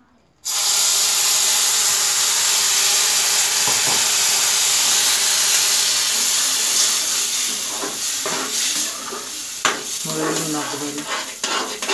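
Water poured into a pan of semolina roasted in hot ghee, starting a loud sizzle and hiss of steam about half a second in. The hiss eases gradually, and near the end there are a few stirring scrapes and clinks of a metal slotted spoon against the pan.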